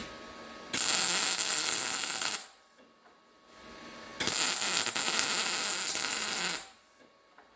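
Two bursts of arc welding, a crackling hiss that starts and stops abruptly, one about a second and a half long and a longer one of about two and a half seconds, as a nut is welded onto a grinder pad adapter.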